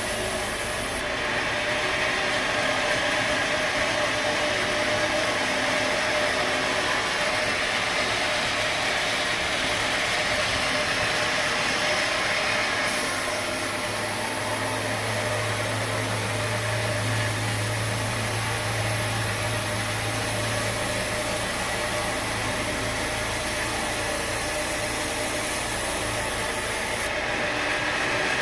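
Sawmill machinery running steadily, a constant engine-and-saw noise, with a low hum that swells for several seconds in the middle.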